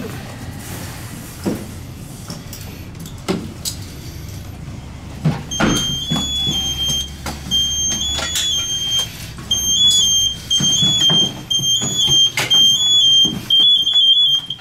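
A firefighter's PASS distress alarm chirping from about five seconds in: a high electronic tone stepping up and down in pitch, repeating in short groups, the signal of a downed, motionless firefighter. Knocks and clatter of air-pack and strap gear as rescuers kneel and work over him.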